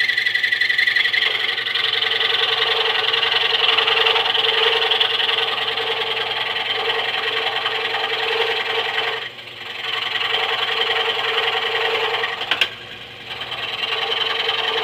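Harbor Freight scroll saw running at a slow speed setting, its reciprocating blade cutting wood with a steady buzz. The sound drops away briefly twice, the second time right after a sharp click.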